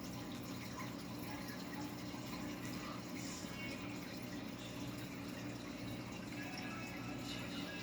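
Aquarium filter running: steady water trickling and splashing over a constant low hum.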